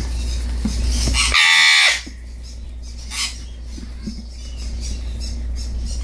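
Baby eclectus parrot squawking once, a loud harsh call of about half a second about a second and a half in, then a fainter short call a few seconds in, while it is hand-fed formula from a syringe.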